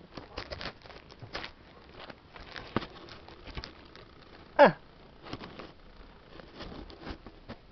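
Light rustling and scattered clicks close to the microphone, with one short, loud squeak about halfway through that falls steeply in pitch.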